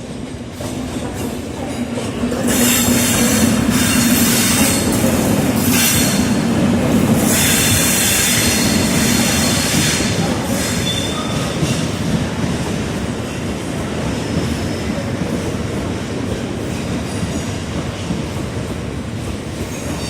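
A train running over the rails with its wheels squealing, loudest from about two seconds in until about ten seconds in, then easing off.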